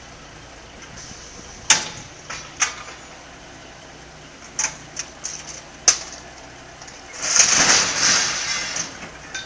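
Heavy wrecker's diesel engine running steadily as its boom lowers a crashed forklift, with several sharp metallic clanks in the first six seconds. About seven seconds in, a loud rushing noise lasts about a second and a half.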